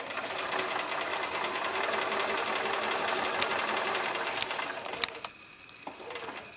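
Electric sewing machine running steadily as it stitches a seam through pinned layers of fabric, stopping about five seconds in.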